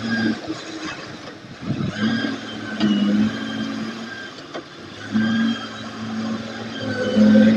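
Hitachi WH04D wheeled excavator's engine running as the machine works and drives over rough dirt, its note swelling in surges several times, each about a second long, with a steady high whine riding over it.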